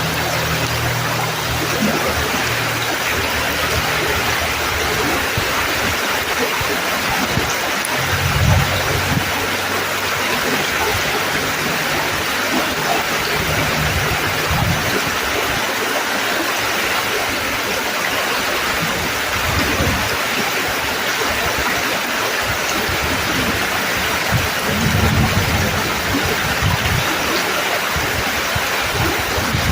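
Creek water rushing steadily in a dense, even wash, with a low rumble that comes and goes.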